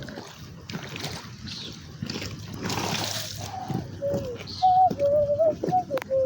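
A vehicle passing on a wet road, its tyres hissing and splashing about three seconds in, followed near the end by several short, loud pitched tones.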